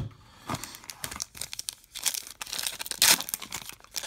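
A thump at the start, then the crinkling of a trading-card pack's foil wrapper as it is handled and torn open, with one loud rip about three seconds in.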